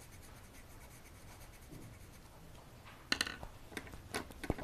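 A green coloured pencil shading leaves on paper: a faint, quick scratching of pencil strokes. About three seconds in come a few louder clicks and knocks as the pencil is put down and things on the table are handled.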